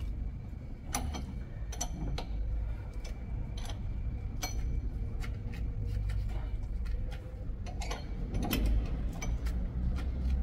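Irregular metallic clicks and ticks from hand tools as the front brake caliper of a BMW R1200GS Adventure is unbolted, over a steady low hum.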